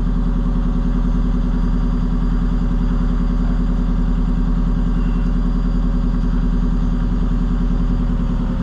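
Hire cruiser's inboard diesel engine running steadily while under way, an even low drone with no change in pace.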